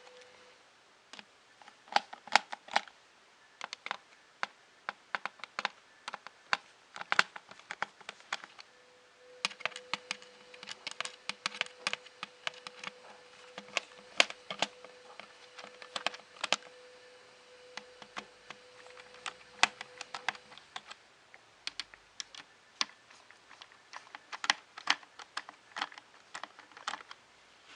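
Screwdriver tightening the screws of a ZX Spectrum+ case: irregular sharp clicks and ticks as the screws turn and the driver and case are handled. A faint steady tone sits under the clicks for a stretch in the middle.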